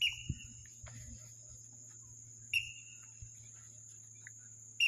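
Crickets trilling in a steady, high, unbroken drone over a low steady hum. Three sharp short sounds, each with a brief ringing tone, come about two and a half seconds apart: one at the start, one midway and one at the end.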